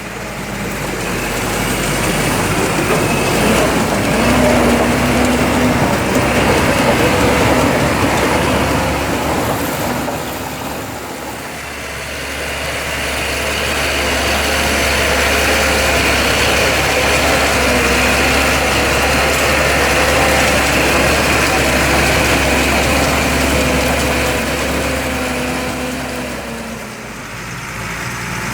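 Fendt tractor diesel engines running under load. The sound swells and fades twice.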